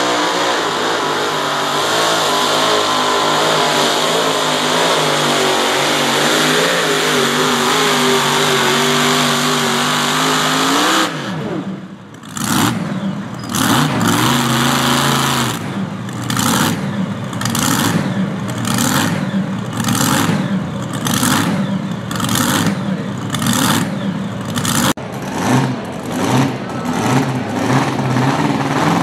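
Supercharged mini rod pulling-tractor engine running hard at high revs under load, its pitch slowly climbing. About eleven seconds in the revs drop away sharply. The engine then carries on in a rhythmic pulsing, about one and a half surges a second.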